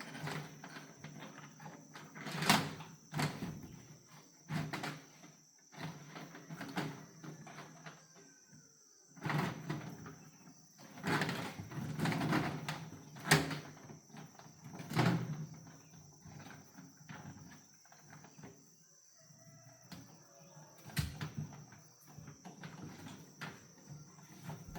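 Irregular knocks, bumps and scraping from a refrigerator being handled and strapped with rope onto a carrying basket, the sharpest knocks about two and a half seconds in and again around thirteen seconds.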